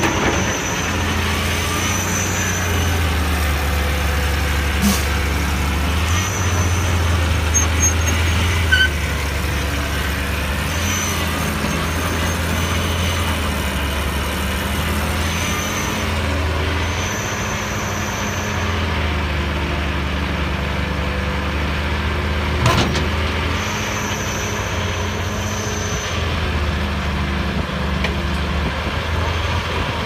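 Cat 320B excavator's diesel engine running under load while it digs and loads a dump truck, the engine note rising and falling, with a thin high whine coming and going several times. Two sharp knocks, about five seconds in and again about 23 seconds in.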